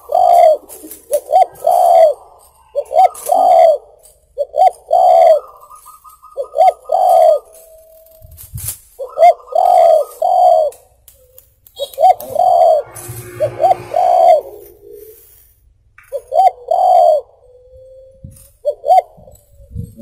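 Spotted dove (tekukur) cooing over and over: about ten phrases, each a couple of short notes running into a longer coo, with short pauses between them.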